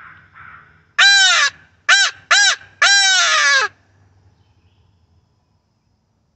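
Four loud, harsh crow caws played from an electronic crow call, starting about a second in; the first and last are drawn out and the middle two are short. A fainter caw comes just at the start.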